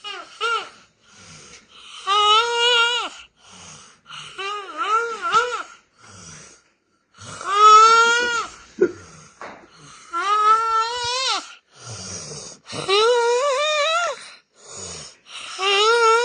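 Snoring that comes out as a high, wavering, whining tone with each breath, about every two and a half to three seconds, with fainter hissing breaths in between.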